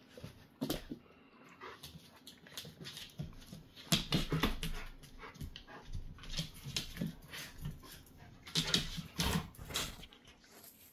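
Two dogs, one large cream-coloured and one small brown, play-wrestling: whimpering and other dog vocalisations with scuffling on the floor and dog bed, in uneven bursts, loudest about four seconds in and again near nine seconds.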